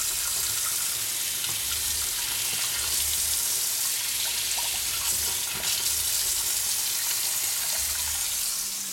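Pot of water and liquid RIT dye boiling on a stove: a steady bubbling hiss with faint low pulses.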